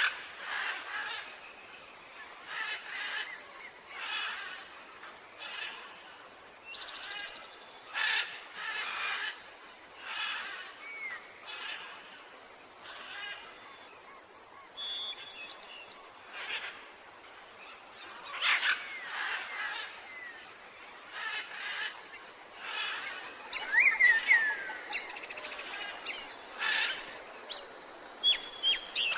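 Tropical forest ambience: birds and other animals calling over a faint steady hiss, with a pulsing call repeating every second or so. A few sliding whistled calls come about three-quarters of the way through and are the loudest part.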